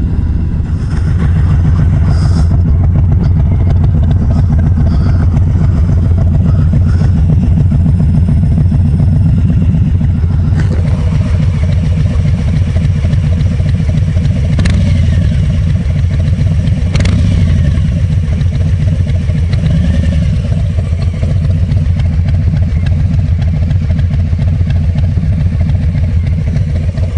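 Harley-Davidson Street Bob's Milwaukee-Eight V-twin idling steadily through freshly fitted Rinehart slip-on mufflers, a low, even exhaust beat.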